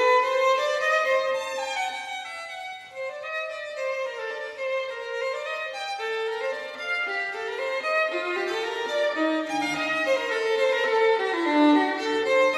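Music: a violin playing a flowing melody of held and stepping notes.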